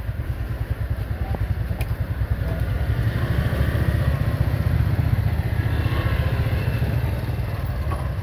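Motorcycle engine running steadily close by, a little louder through the middle.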